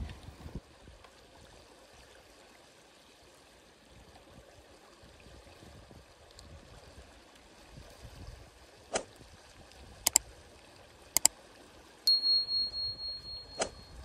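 Faint steady rush of river water. In the second half come a few sharp clicks, and near the end a high, bell-like ringing tone lasts about a second and a half; it is the loudest sound.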